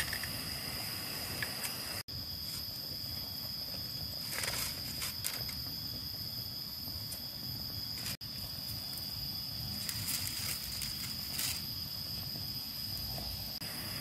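A pot of water and meat at a rolling boil on a camp stove, over a steady high-pitched insect drone from the surrounding forest. A few light clicks come about halfway through and again near the end.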